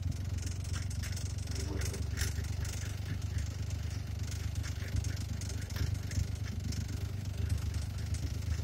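Small van driving along steadily, heard from inside the cabin: a steady low engine drone with scattered light rattles and clicks from the body.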